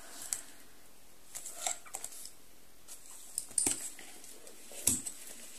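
A handful of soft clicks and light rustles, a second or so apart, from paperback books being handled, set down and picked up.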